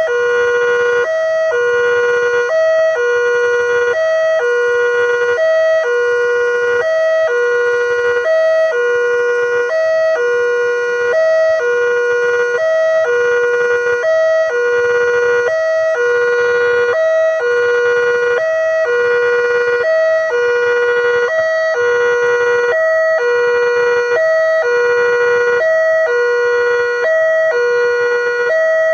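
Railway level-crossing warning alarm sounding continuously: an electronic two-tone siren alternating evenly between a higher and a lower tone, a little over one high-low cycle per second, warning that a train is approaching.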